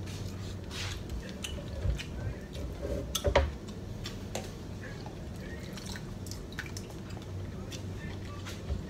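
Seafood-boil butter sauce poured between a plastic tub and a glass bowl, dripping and splashing, with light clicks of the containers and a louder knock a little over three seconds in. A low steady hum sits underneath.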